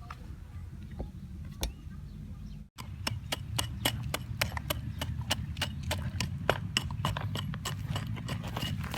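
A series of light, sharp taps, a few a second, over a low steady rumble; after a brief cut about three seconds in, the taps come quicker and louder.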